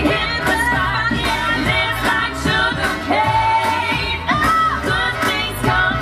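Dance music: a song with a sung vocal line over a band and a steady beat, with one note held for about a second near the middle.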